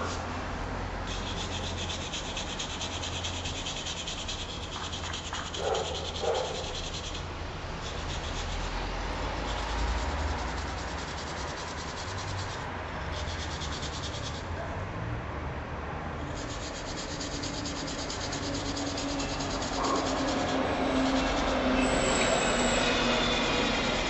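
Copper ingot being scrubbed and scraped with a wooden-handled tool in a pan of water: steady back-and-forth rubbing, with two short knocks about six seconds in.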